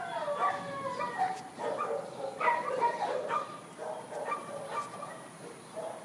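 A dog whining in a string of short, high, gliding calls. The first is a longer whine that falls in pitch.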